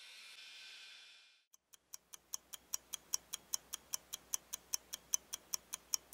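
Rapid, evenly spaced ticking, about five ticks a second, like a ticking-clock sound effect, over a faint low hum; it starts about a second and a half in. Before it, a steady hiss cuts off about a second in.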